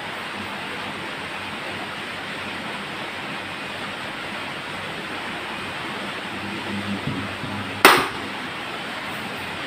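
Pedestal fan spinning a wall-clock face mounted in place of its blades, giving a steady whooshing rush of air and motor. About eight seconds in there is a single sharp knock, the loudest sound.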